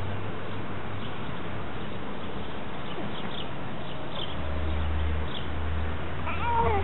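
Garden ambience: a steady background hiss with a low rumble on the microphone that swells about four seconds in, and a few faint bird chirps. A short high voice sounds near the end.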